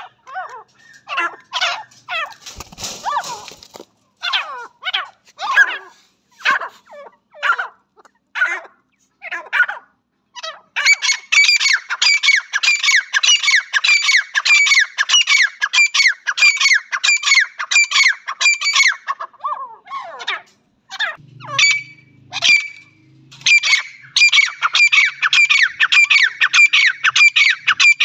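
Grey francolins calling. For the first ten seconds or so there are single sharp, falling notes at uneven spacing. Then comes a fast run of repeated falling notes, several a second, which breaks off briefly about twenty seconds in and starts again.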